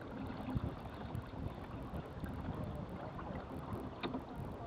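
Wind rumbling on the microphone and water washing along the hull of a small sailboat under sail at low speed, with a few light clicks from the boat's fittings, the clearest about four seconds in.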